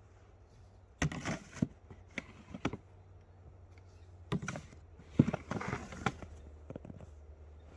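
Snow shovel digging into and scraping through packed snow in short bursts: a cluster about a second in, then another run of scoops from about four to seven seconds in, the loudest scrape a little after five seconds.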